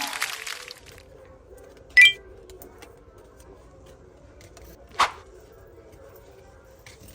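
Applause-like noise fading out in the first second, then a quiet room with a brief pitched chime-like sound about two seconds in and two sharp clicks, one about five seconds in and one at the very end.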